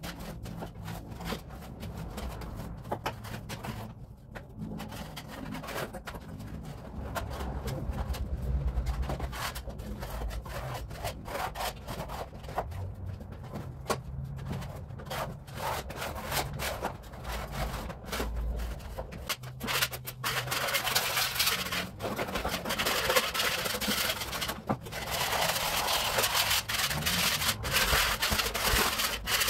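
Old wallpaper being torn and stripped off a plaster wall by hand: irregular rasping, ripping strokes with small clicks, growing denser and louder in the last third.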